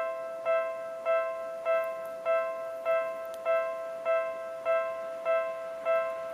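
Japanese railway level-crossing warning bell, the electronic kind, dinging steadily a little under twice a second, each strike ringing briefly and fading before the next. It signals that the crossing is closed for an approaching train.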